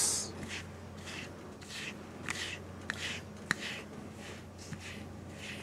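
Pink pet grooming brush drawn through a cat's fur in repeated short swishing strokes, about one or two a second, with a couple of light clicks.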